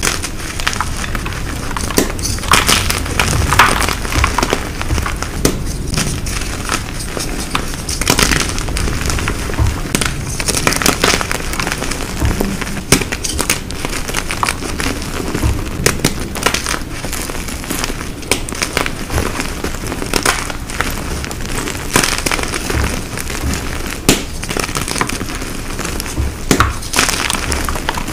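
Blocks of gym chalk being crushed and crumbled, a dense run of crisp, irregular crackles and crunches with louder snaps here and there.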